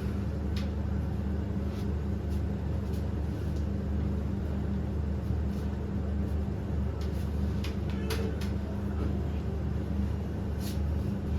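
A steady low machine hum, with a few faint short clicks near the end.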